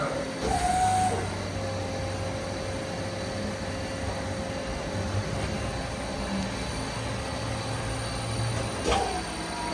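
Mori Seiki NL3000MC CNC turning center running with a steady machine hum. About half a second in there is a short pitched whine with a hiss, and a similar whine starts again near the end.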